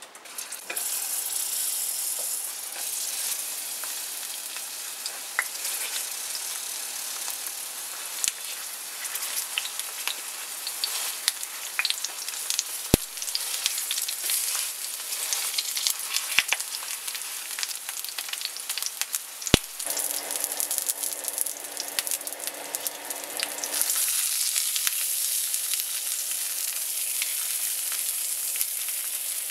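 Eggplant halves sizzling and crackling in hot oil in a stainless steel frying pan after being laid in flat side down, with a few sharp clicks. About two-thirds through, a steady low hum joins the sizzle.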